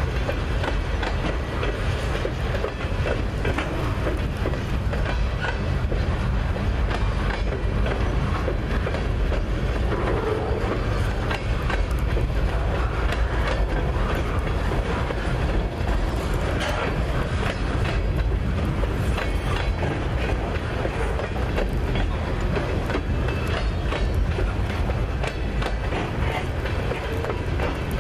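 Loaded freight flatcars rolling steadily past: a continuous rumble of steel wheels on rail, with repeated clicks as the trucks cross rail joints.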